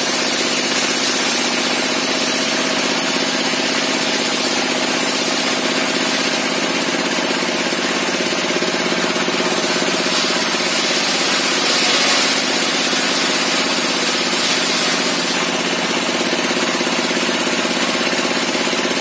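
Engine-driven homemade table saw running steadily, its large circular blade spinning under power, with a brighter hiss that swells briefly a little past the middle.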